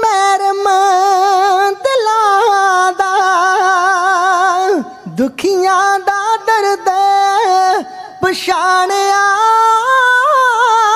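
Male voices singing Punjabi Kavishri, holding long high notes with a wavering vibrato. About five seconds in the voice breaks off and slides down before the held note resumes, and there is another short break near eight seconds.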